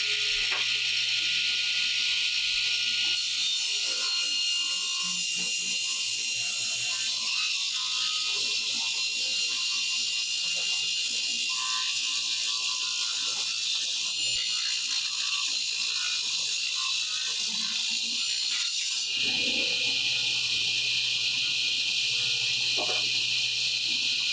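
1970s Craftsman contractor table saw, model 113.226680, running with a ripping blade while a long board is fed through it in a rip cut: a steady hiss over a faint low motor hum. The owner calls the saw underpowered.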